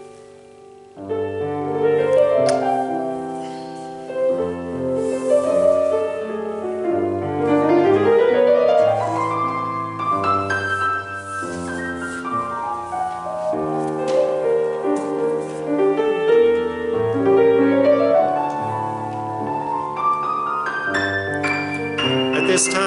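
Grand piano playing a flowing piece with rising and falling arpeggio runs, starting about a second in.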